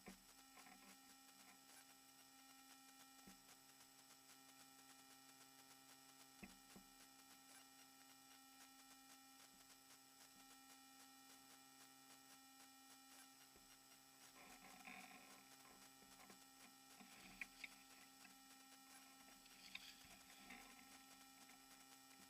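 Near silence with a steady faint electrical hum and whine. A few faint clicks and rustles come through, twice close together a little after the middle.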